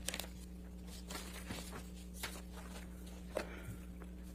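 Quiet room tone: a steady low electrical hum with a few faint, short clicks scattered through it.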